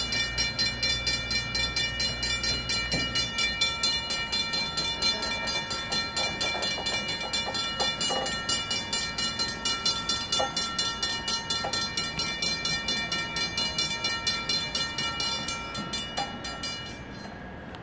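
Safetran Hybrid electronic railroad crossing bells ringing in a steady rapid rhythm, a few strikes a second, while the crossing gates lower, then stopping near the end once the gates are down.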